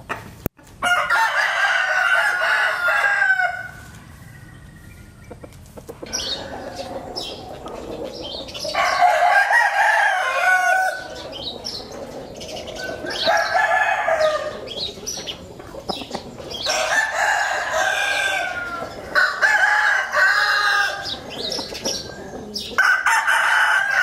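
Rooster crowing repeatedly: about six long crows a few seconds apart.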